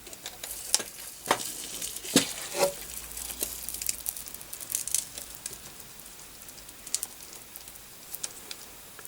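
Irregular crackling and popping from a DIY 400 W solder pot as a motherboard connector sits in the molten solder to free its pins. The pops come thick in the first few seconds and thin out toward the end.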